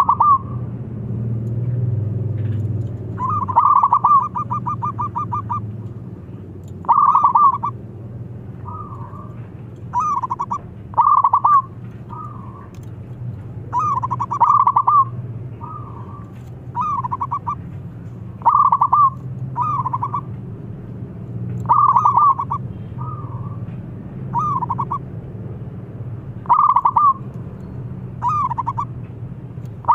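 Zebra dove (perkutut) singing its cooing song over and over: short bursts of rapid, rolling coos about every one to two seconds, with one longer run of quick coos a few seconds in. A steady low hum runs underneath.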